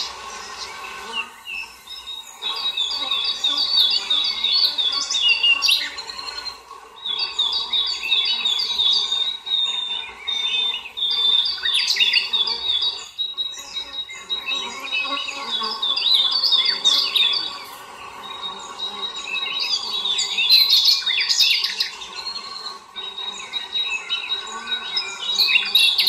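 Several songbirds chirping and singing in short repeated phrases, over a steady insect buzz.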